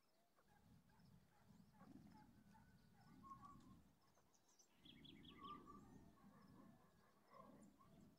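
Faint rural dawn ambience: scattered distant bird chirps and calls, including a quick run of high chirps about five seconds in, over a low rumble that comes and goes.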